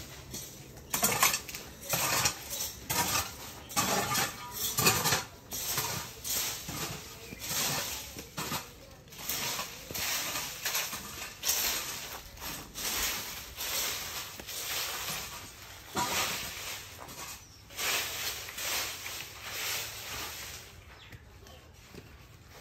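Irregular clinking and clattering of hard objects being handled, many separate knocks in quick succession that thin out near the end.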